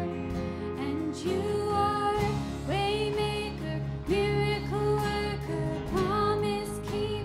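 A live worship band playing and singing a slow song: several voices over acoustic guitar, keyboard and bass, with the low accompaniment filling in about two seconds in.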